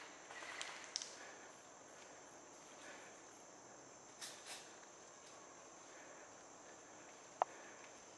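Faint woodland ambience: a steady high-pitched insect chorus, with a few soft rustles and one short sharp click about seven seconds in.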